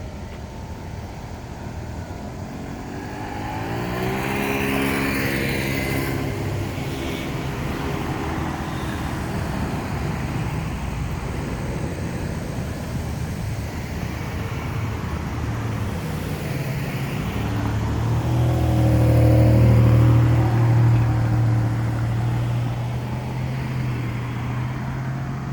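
Road vehicles driving past with engines accelerating: one rises in pitch and passes about four seconds in, and a louder, deeper-sounding engine passes around twenty seconds in.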